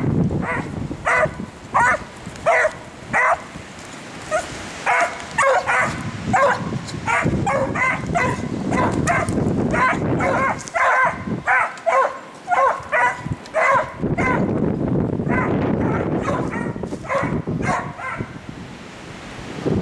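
Beagles baying while running a rabbit: a long string of short, pitched bays, about two a second, with brief pauses, over a low rushing noise near the start and in the last few seconds.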